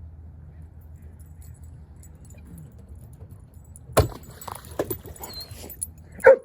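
About four seconds in there is a sharp click. A dog then gives a few short whines, and near the end a loud bark.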